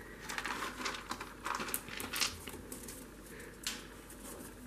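Faint, irregular rustling and scratching of fur and fleece as a ferret is held and stroked on a lap. It comes in short bursts, most of them in the first half.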